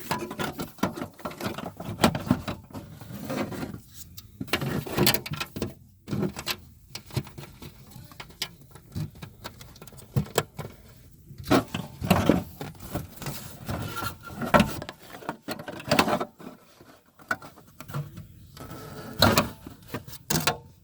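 Hands working plastic trim and the cabin air filter housing: irregular clicks, knocks and rustling.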